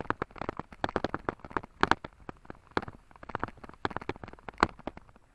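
Mountain bike jolting over a rough grassy trail: a dense, irregular run of clicks, knocks and rattles.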